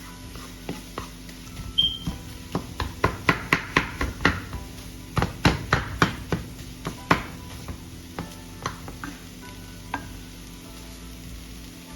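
A metal utensil knocking and scraping against a pan while food is stirred, in irregular taps that come in a quick run through the middle. Faint background music plays under it.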